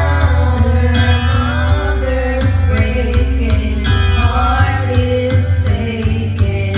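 Karaoke: women singing into handheld microphones over a loud backing track with heavy bass and a steady beat.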